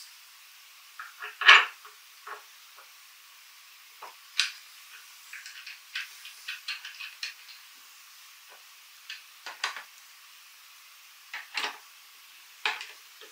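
Small metal clinks and wooden knocks from fitting a machine bolt through a wooden table leg and frame joint and working a nylon lock nut onto it by hand and with pliers. Irregular, with the loudest knock about a second and a half in and a run of quick light ticks in the middle.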